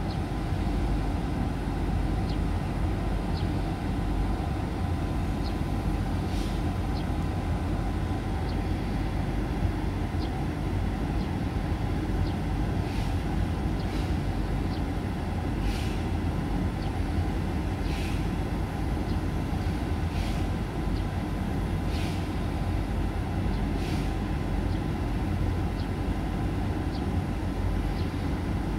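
Steady low outdoor rumble with a faint steady hum, and scattered faint short clicks throughout.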